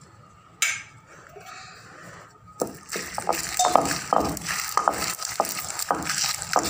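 Dry whole spices, dried red chillies and roasted gram being dropped and pushed around by hand in a stone grinding basin (ural). There is a single sharp click about half a second in, then from about two and a half seconds on a dense run of small clinks and scrapes against the stone.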